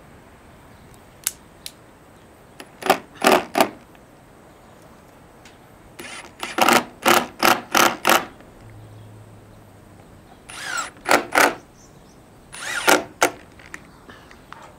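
Cordless drill driving screws in several short bursts with pauses between, fixing gutter brackets to a timber beam.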